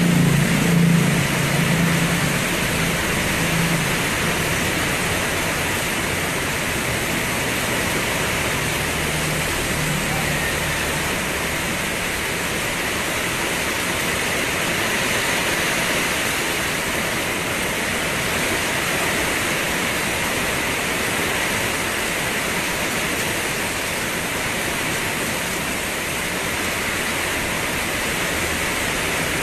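Steady, heavy rain falling. A low hum fades out in the first ten seconds.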